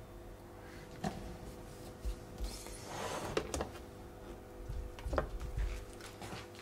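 Yellow plastic darkroom print tongs clicking and scraping lightly against a developing tray holding a black-and-white print: a few soft separate clicks over a faint steady hum.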